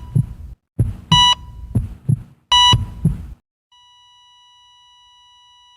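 Heart monitor sound effect: heartbeat thumps, each with a monitor beep, about a second and a half apart, then a steady flatline tone from a little past halfway, the sign of the heart stopping.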